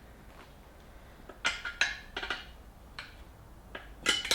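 Metal tyre levers clinking against a motorcycle wheel rim while the tyre bead is levered on: a cluster of sharp clinks about one and a half seconds in, and another pair near the end.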